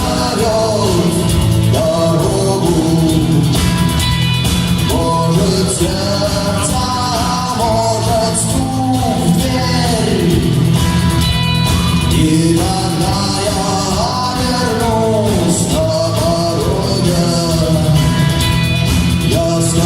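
Rock band playing a song: a steady bass line under a bending lead melody.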